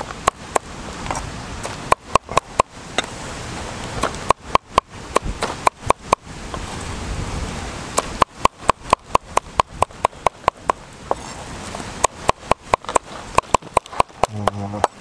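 Large knife chopping fish paste and red chillies on a round wooden chopping block: runs of sharp knocks of the blade on wood, about four a second, with short pauses between runs.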